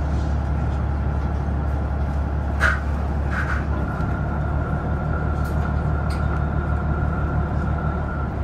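Train running noise: a steady low rumble with two short high squeaks about two and a half and three and a half seconds in, then a steady high whine.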